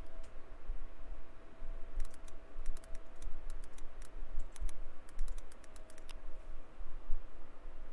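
Typing on a computer keyboard: a quick run of key clicks from about two seconds in until about six seconds in, over a low steady rumble.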